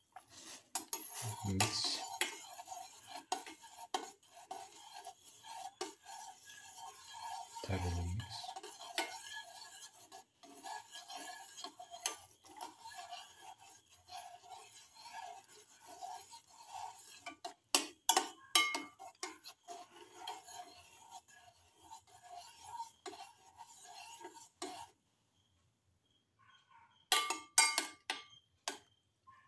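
Metal spoon stirring and scraping around a stainless steel pan of hot water with star anise pieces, in steady repeated strokes. There are a few sharp clinks of the spoon on the pan, two low bumps early in the stirring, and a short pause near the end.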